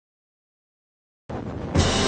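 Silence for over a second, then music starts suddenly, jumping louder just before the end.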